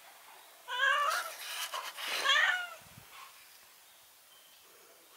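A domestic cat meowing twice, the first call just under a second in and the second about two seconds in, falling in pitch at its end.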